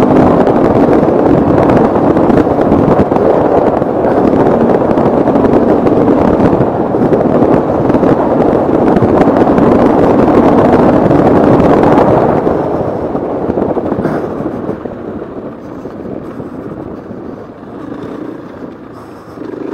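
KTM 450 EXC's single-cylinder four-stroke engine running at speed under heavy wind buffeting on the camera microphone. About twelve seconds in the noise drops off to a quieter run.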